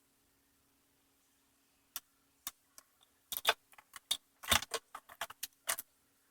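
Wire-harness plug connectors clicking and knocking as they are handled and pushed onto a Roomba's motherboard: scattered sharp clicks, a few early and a dense run of them through the second half.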